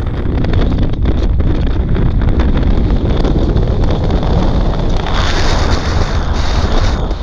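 Wind buffeting a GoPro's microphone: a steady, loud rumble, with a hiss that grows louder about five seconds in.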